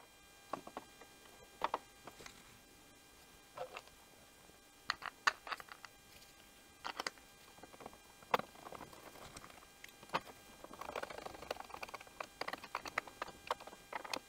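Light clicks and taps of a plastic primer base assembly and a screwdriver being handled and fitted to a Briggs & Stratton Quantum engine, scattered a second or two apart, with a denser run of scratchy clicks about eleven to thirteen seconds in.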